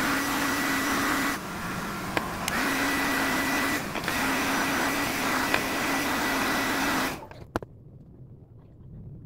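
Hand-held hair dryer running steadily, a rushing blow with a low hum and a high whine, drying water-soaked FPV drone parts. It dips briefly about a second and a half in, then is switched off about seven seconds in.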